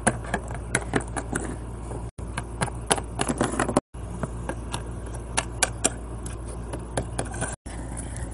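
Small plastic toy figures being hopped and tapped along a wooden tabletop by hand: a run of irregular light clicks and knocks over a steady low hum, broken off briefly three times.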